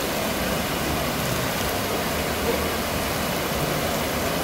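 Steady rush of water, with people's voices mixed in.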